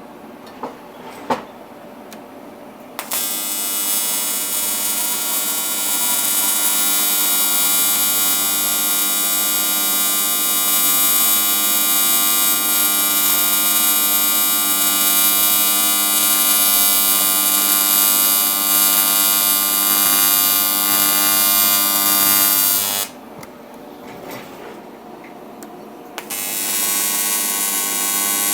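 AC TIG welding arc buzzing steadily as a -10 AN aluminum weld bung is welded onto an aluminum oil pan. The arc strikes about three seconds in, runs for about twenty seconds, stops, and strikes again about three seconds later. A couple of light clicks come before the first arc.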